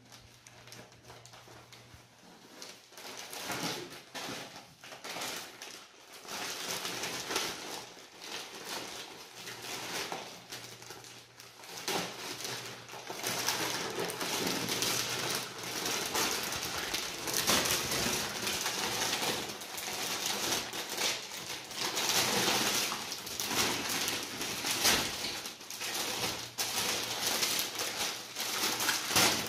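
Wrapping paper rustling and crinkling as a present is unwrapped by hand. It starts faint and becomes louder and busier after a couple of seconds.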